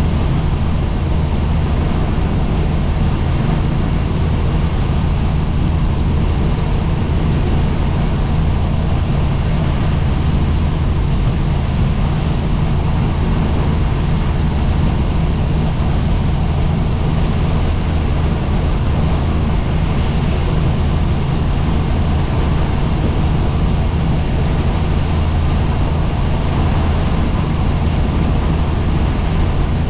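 Helicopter in flight: steady, loud rotor and engine noise with a strong low drone, unbroken throughout.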